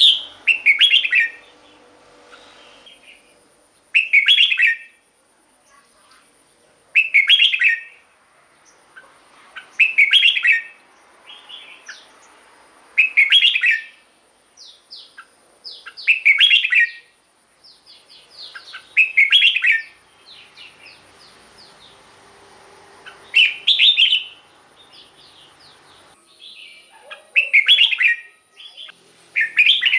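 Red-whiskered bulbul singing: short, loud, bubbling song phrases repeated about every three seconds, with softer chirps in between.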